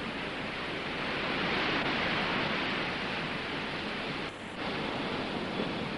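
Ocean surf washing, a steady rush that swells about two seconds in and dips briefly a little past four seconds.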